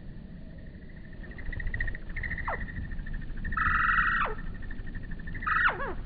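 Hummingbirds calling: a loud buzzy chatter about halfway through, and several squeaky chirps that slide sharply down in pitch, over a steady pulsing high tone.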